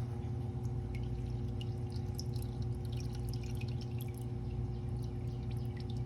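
Engine oil draining from the oil pan of a 2012 Lexus RX 350 and dripping into a drain pan, with scattered, irregular drips. A steady low hum runs underneath.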